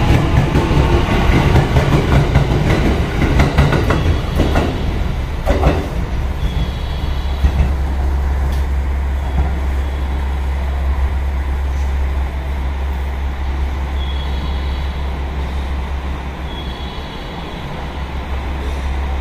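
Ainokaze Toyama Railway 521 series electric train pulling out, its cars rumbling and clattering past over the rails, with a couple of sharp wheel knocks as the last car goes by about five to six seconds in. Then the train noise falls away to a steady low hum.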